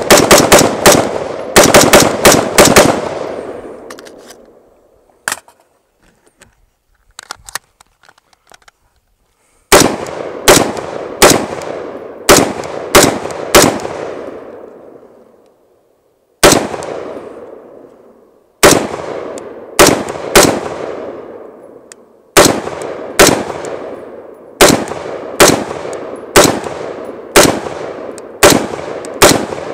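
Huldra Mark IV AR-15 firing 5.56 mm brass-cased rounds in fast semi-automatic strings, about two to three shots a second, each shot trailing off in an echo. A pause of a few seconds near the start holds only faint clicks before the firing resumes. The rifle is cycling every round without a feed failure.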